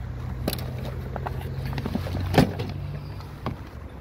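Steady low hum of an idling car engine, with a few short knocks and one loud thump a little past halfway.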